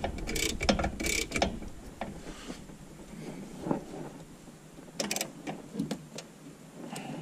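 Metal hand tools clicking and clinking, with scattered knocks, as a wrench is handled and pulled out from under a van's dashboard. The sharpest clicks come in a cluster in the first second and a half and again about five seconds in.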